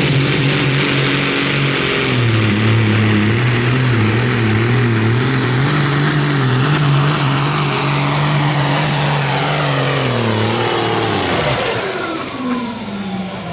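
Loud pulling-vehicle engine held at high revs under load, its note wavering slightly, then revving down sharply about eleven seconds in as the throttle comes off at the end of the pull.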